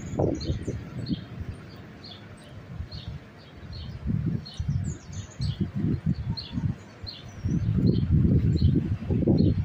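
Dust-storm wind buffeting the phone's microphone in uneven gusts, heaviest near the end. Birds chirp repeatedly above it.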